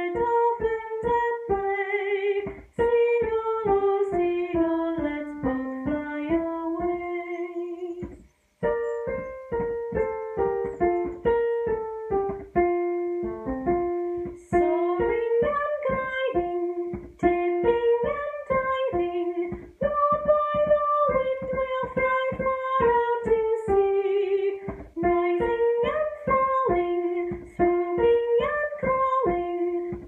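A solo instrument playing a slow melody in separate notes, each starting sharply and then dying away, with a short break about eight seconds in.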